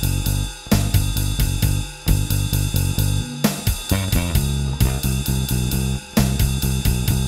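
Electric bass guitar, a Mustang bass with a Nordstrand angled-pole pickup run through a Seymour Duncan Studio Bass compressor, playing a blues-rock bass line of sustained low notes. It plays over a drum track with steady hi-hat and cymbals, and the bass line breaks off briefly a few times.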